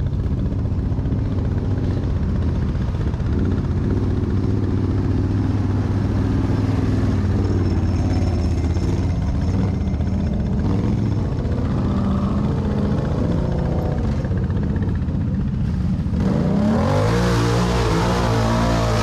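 ATV engine revving up and down as the quad works along a muddy trail rut. About sixteen seconds in it gets much louder as the rider throttles hard through the water-filled rut, the engine note rising and falling over the noise of churned water and mud.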